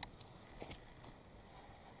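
Faint, sharp crunches of a whitetail deer's hooves stepping through dry leaf litter, a few scattered steps with the loudest right at the start.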